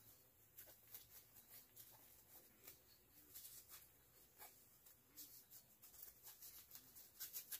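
Near silence with faint rustling and small ticks of cotton fabric handled by hand as a stitched pillow piece is turned right side out.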